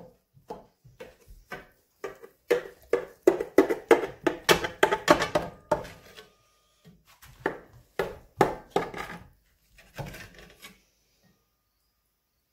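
Metal knife and spatula scraping and knocking against a cast iron Dutch oven while cutting and lifting out portions of a baked dish. It is a run of short clicks and scrapes, thickest from about two to six seconds in and again around eight to nine seconds.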